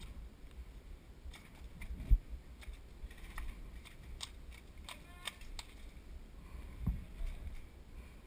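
Scattered small clicks and a couple of dull knocks from handling an airsoft grenade that will not go off.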